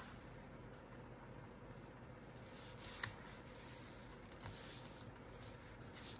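Faint rustling and rubbing of paper being handled on a desk, with a light tap about three seconds in.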